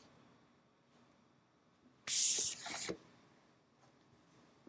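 Quiet room tone, broken about two seconds in by a short hiss lasting about half a second.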